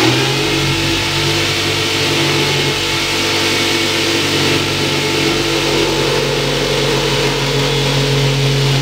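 An engine running steadily, a constant hum with a few steady tones that do not change in pitch.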